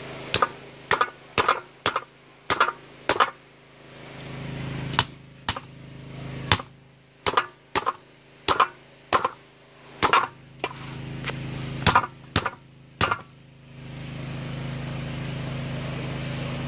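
Meat cleaver chopping through a large fish into steaks on a wooden cutting board: about twenty sharp chops in uneven runs, often two or three a second, stopping about thirteen seconds in. A low steady hum rises in the background twice, loudest near the end.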